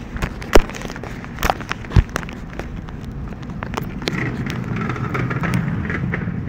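Handheld phone microphone handling noise: sharp knocks and bumps in the first two seconds, then rubbing and rustling as the phone moves against clothing, over supermarket background noise.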